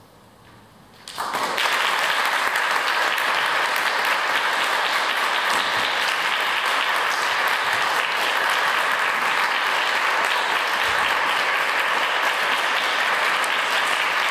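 A hushed pause of about a second, then audience applause starts suddenly and carries on steadily.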